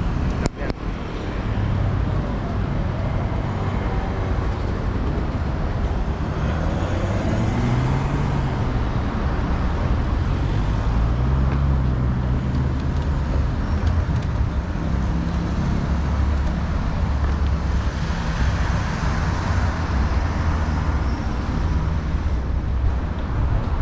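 City street traffic: car engines running and passing over a steady low rumble, with one vehicle's engine note rising and falling in pitch in the middle. A single sharp click sounds just after the start.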